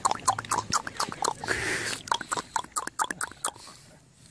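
A person clapping quickly, about four to five claps a second, which stops about three and a half seconds in.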